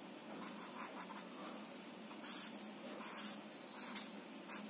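Felt-tip whiteboard marker drawing short dashes on paper: a run of brief scratchy strokes, the two loudest a little past two and three seconds in.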